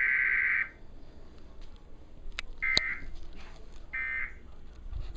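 Emergency Alert System digital data bursts (SAME tones) from a TV for a Required Weekly Test. A long data burst cuts off about half a second in, then two short bursts come about a second apart, a click with the first.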